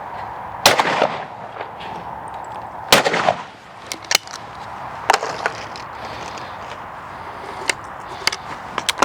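Two shots from a Purdey Sporter over-and-under shotgun, about two and a half seconds apart, each loud with a short ringing tail. After them come several fainter sharp clicks.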